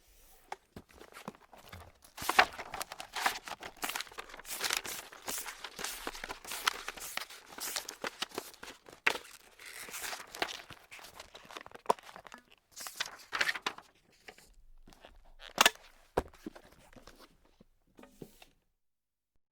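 Sheet paper being crumpled and crinkled by hand, close up: a dense run of crackling with brief pauses, then sparser crackles with one sharp crunch about three-quarters of the way through.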